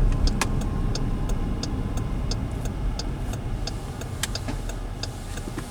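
Steady road and engine rumble inside the cabin of a moving 2016 Dodge Durango, with the turn-signal indicator ticking evenly, about three ticks a second.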